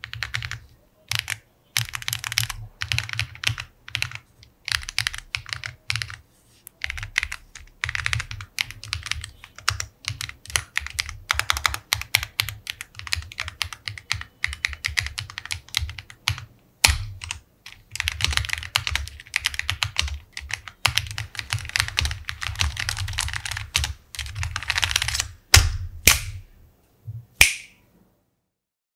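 Typing on an Ajazz AK980 mechanical keyboard: fast runs of key clacks in bursts with short pauses, ending with a few single strokes before the typing stops near the end.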